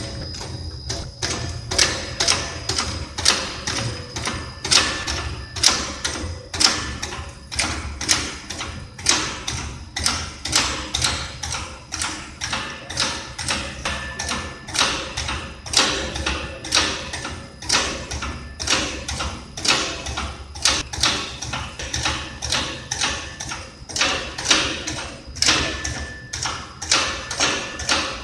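Children's scooter's front wheel rolling on the ribbed drum of a scooter durability test machine, knocking over each raised rib in a steady rhythm. The louder thumps come a little under once a second, with lighter taps between, over a low steady hum from the machine.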